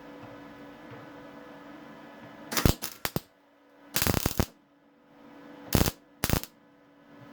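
Welder tacking a steel repair plate into a car floor: four short bursts of crackling arc, each under a second.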